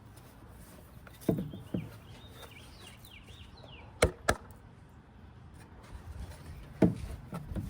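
Scattered knocks and clunks of parts being handled during reassembly work on a pickup truck, with two sharp clicks in quick succession a little past the middle. Faint bird chirps sound in the background between about one and three and a half seconds in.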